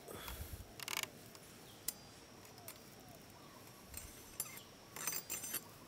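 Bamboo tubes being handled: a few short knocks and scrapes, then a quick run of rattling ticks near the end.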